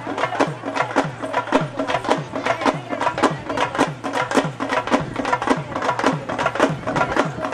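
Traditional South Indian procession music: drums beating a fast, steady rhythm of about four strokes a second, with a reed pipe playing above them.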